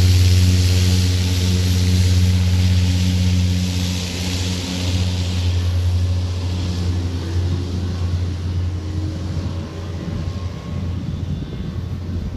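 Single-engine turboprop floatplane running across the water on its floats: a steady low propeller drone with a high rushing hiss, both fading as the plane moves away.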